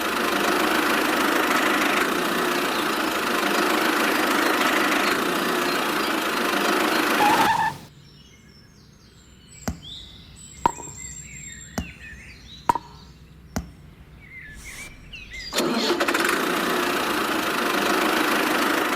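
A small motor runs steadily, then stops for about eight seconds and starts running again near the end. In the quiet gap there are several sharp clicks or taps and a few faint chirps.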